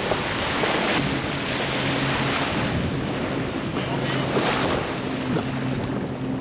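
Wind buffeting the microphone over small surf washing up on a sandy beach, with a steady low hum underneath from about a second in.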